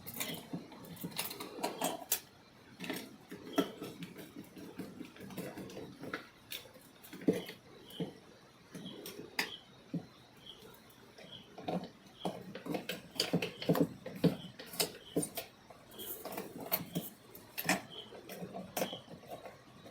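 Close-up handling of electrical wiring: irregular small clicks, taps and scrapes as wires are fitted to the terminals of a plastic switchboard socket and its terminal screws are worked with a screwdriver.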